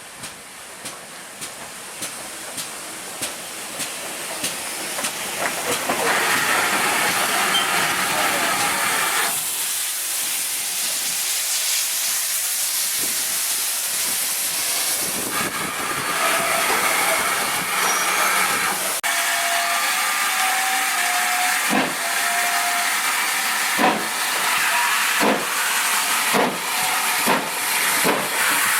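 Steam locomotive hissing loudly as it lets off steam, the hiss building over the first few seconds, with regular exhaust beats. A few short high notes sound about two-thirds through, and sharper beats come near the end.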